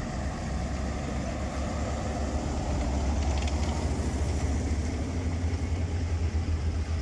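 WWII German half-track driving past close by, its engine giving a steady low rumble, with a sidecar motorcycle's engine coming up behind it. The rumble grows louder about two seconds in.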